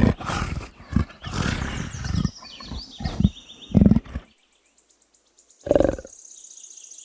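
Leopard calling: a rapid series of short, rough roars over the first four seconds, then a pause and one more call about six seconds in.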